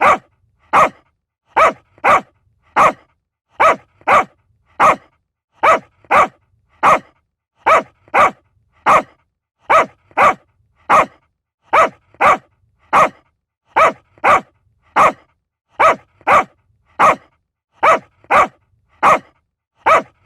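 Small dog barking in a long, steady series of short, sharp barks, about one to two a second, each clipped off with silence between.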